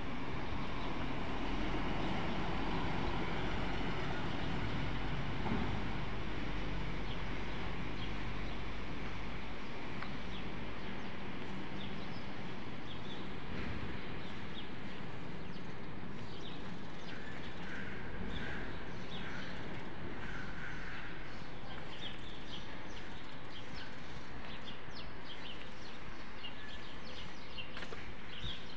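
Street ambience: a steady rumble of distant traffic, heavier for the first ten seconds or so, with small birds chirping from about halfway on.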